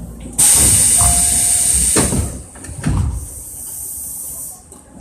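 Compressed air vents from the stopped electric train with a loud hiss that starts suddenly and lasts about two seconds. Two dull thuds follow about a second apart, then a quieter hiss that fades near the end.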